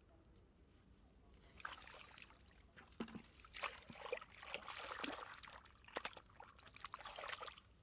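Hands sloshing and splashing in a shallow puddle of muddy water, groping through it for fish. The splashes come unevenly, starting about a second and a half in and stopping just before the end.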